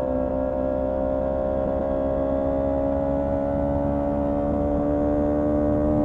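Honda CB125T's 124 cc parallel-twin engine running under way with its air cleaner and silencer removed: a steady note that rises slowly in pitch as it pulls in one gear. It is running well.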